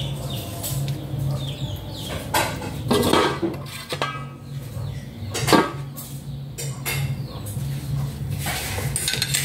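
Wooden spatula stirring and scraping a frying pan of saucy stir-fry on a gas stove, with scattered knocks and clinks against the pan, the loudest about halfway through. A stainless steel lid is set down over the pan.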